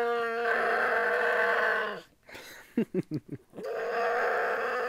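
A person imitating a bear with his voice: a long held call, a few short grunts about two and a half seconds in, then another long held call.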